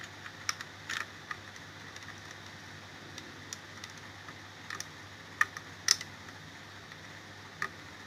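Scattered small plastic clicks and taps as speaker-lead plugs are pulled from and pushed into their sockets on an LCD TV mainboard, over a faint low hum. The two sharpest clicks come a little past the middle.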